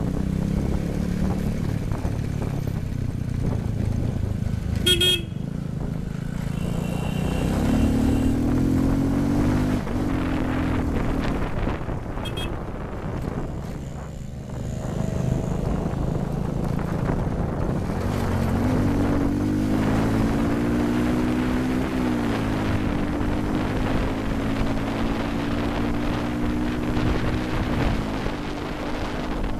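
Motorcycle engine running on the move in road traffic. Its pitch rises as it accelerates about 7 seconds in and again around 18 to 21 seconds, holds, then drops as it eases off. A short horn toot sounds about 5 seconds in and a fainter one near 12 seconds.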